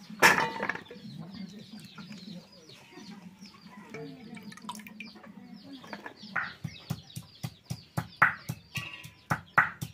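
Hens clucking, with a sharp splash-like clatter just after the start. From about six seconds, a stone muller strikes and grinds on a flat grinding stone in a steady rhythm of about two to three strokes a second, making a spice paste.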